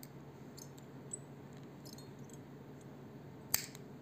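Faint small handling clicks, then one sharp snip near the end: side-cutting pliers cutting through nylon fishing line.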